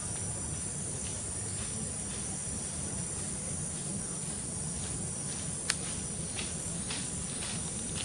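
Steady high-pitched chorus of insects such as crickets or cicadas, with a low rumble underneath. Several short sharp clicks come in the second half, one much louder than the rest.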